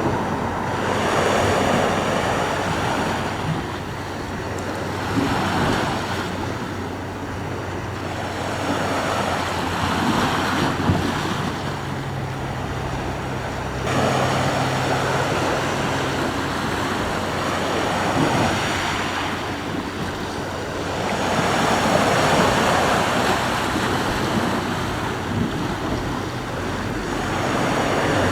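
Sea waves breaking and washing up the shore, the surf swelling and fading every few seconds, with some wind on the microphone.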